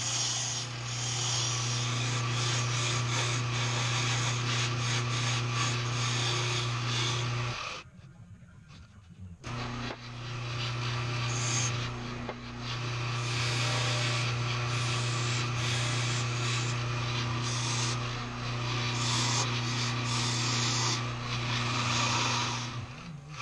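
Delta wood lathe running with a steady hum while a hand-held turning tool cuts a spinning wooden file-handle blank, giving a continuous scraping hiss of shavings coming off. The sound drops out for about two seconds a third of the way in, then resumes.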